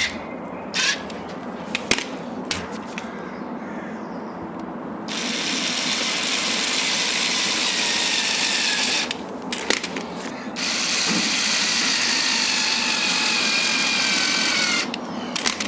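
A small handheld electric power tool whirring steadily. It runs lower for the first few seconds, then louder, stops briefly with a few clicks about nine seconds in, and starts again before cutting off near the end.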